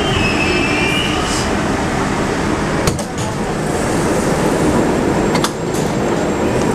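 81-765.2 metro train stopped at a station, its ventilation and running gear humming steadily. A thin squeal fades out in the first second or so, and a sharp clack about three seconds in as the sliding doors open. A second sharp click follows about two and a half seconds later, as passengers step off.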